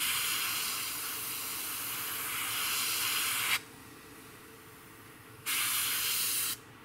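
Airbrush spraying paint in two hissing bursts, the first about three and a half seconds long, the second about a second, near the end.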